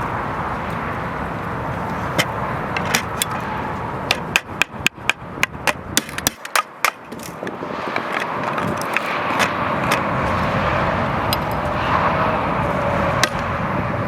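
Sharp knocks of a digging tool striking the ground, a quick run of about a dozen in the middle at three or four a second, with a few single strikes before and after, over a steady hiss.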